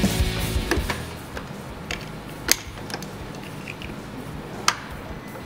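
Rock background music fading out, then a few sharp, separate clicks of a motorcycle's handlebar control housing being fitted back together by hand.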